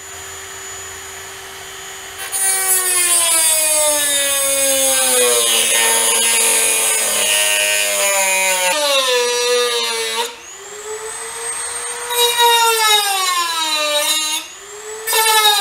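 Dremel rotary tool cutting the sheet-metal firewall: a high motor whine that sags in pitch as the bit bites into the metal and climbs again as it eases off, under a gritty grinding hiss. It spins alone for about two seconds before the cutting starts, and the grinding drops away briefly twice, about ten and fourteen seconds in.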